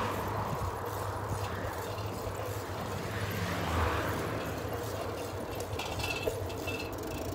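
Steady wind noise on the microphone of a moving bicycle, with a car passing right at the start and a second swell of traffic noise about halfway.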